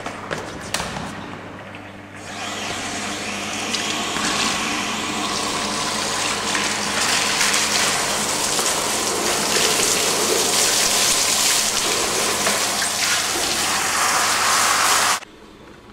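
Liquid gushing from the bottom outlet of a stainless steel cheese vat into a cloth draining sack, spilling and splashing across the floor: the vat being emptied to drain the curd for fresh cheese. The rush swells about two seconds in, stays loud, then stops abruptly near the end.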